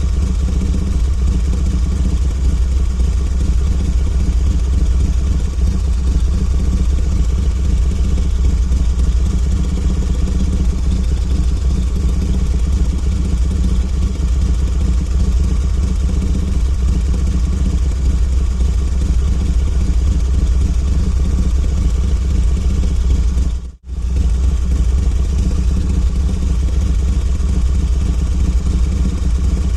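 Harley-Davidson V-twin motorcycle engine idling steadily. It cuts out for a split second about three-quarters of the way through, then carries on unchanged.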